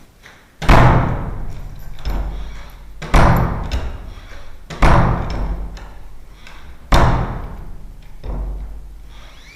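A door with a newly fitted mortice lock slammed shut four times, each bang followed by a long ringing decay, with softer knocks in between as it is opened again. The latch is being tested against the freshly adjusted strike plate, which it is only just clearing.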